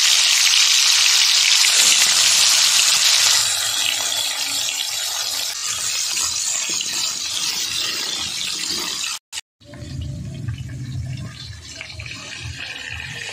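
Marinated fish pieces sizzling loudly in hot frying oil in a kadai, a steady hiss that is loudest for the first three seconds and then eases. It breaks off about nine seconds in, and a quieter, lower sound follows.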